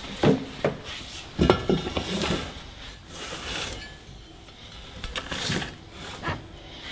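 Metal clinks and knocks as the halves of a billet Subaru boxer engine case are handled and shifted on a workbench, with a brief scrape about three seconds in.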